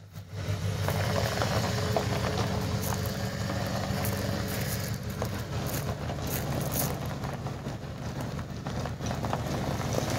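Ford pickup truck's engine running steadily at low revs as it tows a heavy load, with gravel crackling under the tires.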